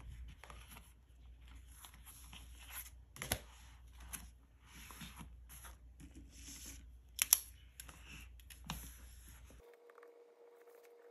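Planner pages rustling and pens being handled in a fabric pen case, with sharp clicks and taps scattered through, the loudest a little past halfway. Near the end the sound cuts off abruptly to a faint steady hum.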